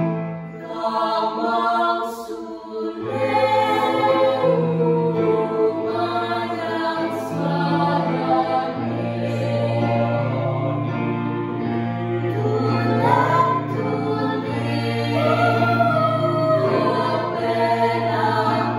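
Mixed teenage choir of boys and girls singing a song in harmony, with held low notes underneath that shift pitch every second or two.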